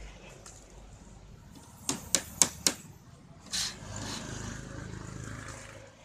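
Four quick, sharp knocks in a row about two seconds in, during hand work on a PVC door frame, followed by a short rasp; faint road traffic underneath.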